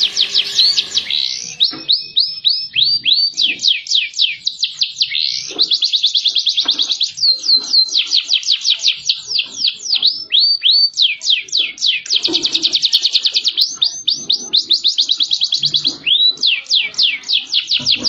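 Domestic canary mating song: continuous rolling trills of fast, repeated down-sweeping notes, switching from one trill type to the next every second or two.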